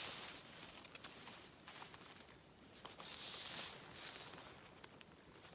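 Tent fabric rustling and crinkling as a tent is pitched, with scattered small clicks and a louder burst of rustling about three seconds in.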